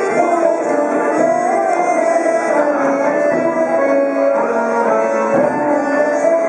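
Accordion and santouri (hammered dulcimer) playing a traditional tune together, the accordion holding sustained notes under the santouri's struck strings.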